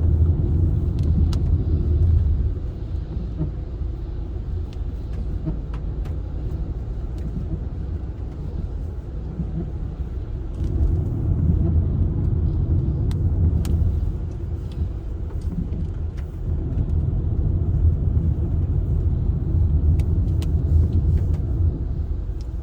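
A car driving on a winding mountain road: steady low road and engine rumble that eases off and swells back a few times.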